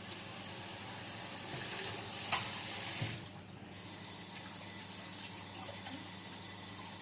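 Water running into a sink, with a short break about three seconds in and a couple of knocks around then.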